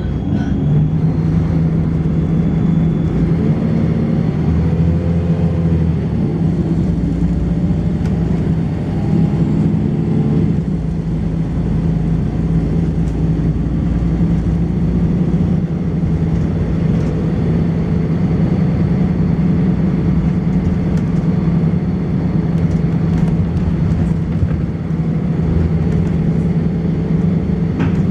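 Volvo B10BLE bus engine with its ZF gearbox, running under way: a strong steady engine note that shifts in pitch several times in the first ten seconds or so, then holds steady. A faint thin high-pitched whine runs above the engine.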